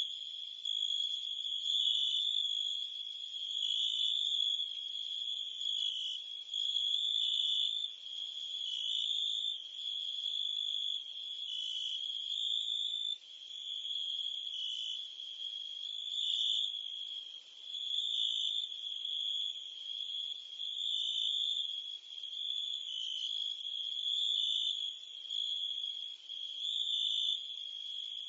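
Crickets and cicadas chirping in a dense, unbroken chorus: a continuous high-pitched trill that swells and fades every second or two, its pitch dipping slightly now and then.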